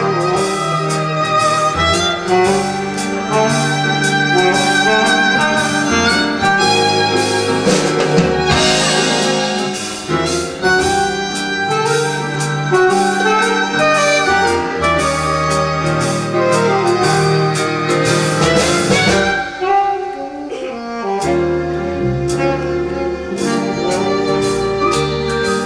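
Live band playing an up-tempo number, with violin and saxophone leads over a rhythm section keeping a steady beat. The band drops back briefly about twenty seconds in, then picks up again.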